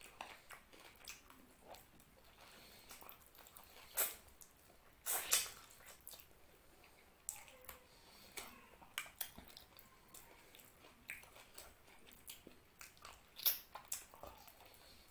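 Close-miked eating by hand: fingers squishing rice into mutton curry gravy, then wet chewing and lip smacks, with several sharper smacks scattered through, loudest about four, five and thirteen seconds in.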